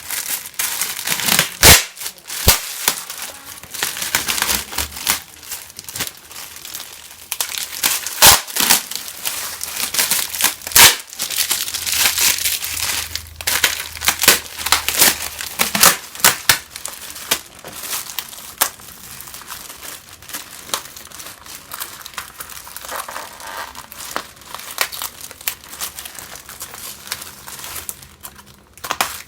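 Bar-soap packaging crinkling as it is handled and unwrapped by hand: irregular rustling with a few sharp, loud crackles.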